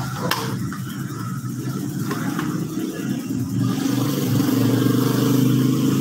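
A motor vehicle engine running steadily, getting louder about halfway through. A single sharp click sounds near the start.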